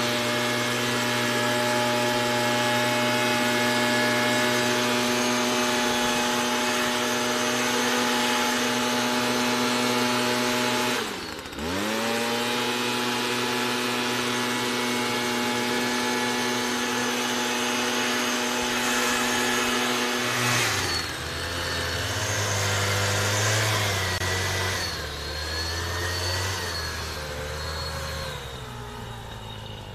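Two-stroke engine of a backpack motorised mist blower running at steady high speed while fogging insecticide. About eleven seconds in the revs dip sharply and recover. From about twenty seconds in the engine drops to a lower, wavering speed and gets quieter.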